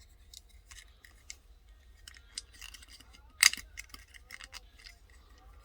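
Small clicks and taps of a die-cast toy car being handled, with one sharper click about three and a half seconds in.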